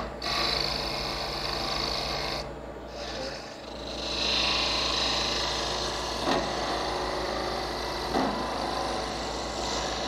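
A wood lathe runs with a steady hum while a turning gouge cuts a small spinning wooden knob, roughing in its shape. The cut makes a hissing scrape that eases off briefly about a third of the way in and is heaviest around the middle.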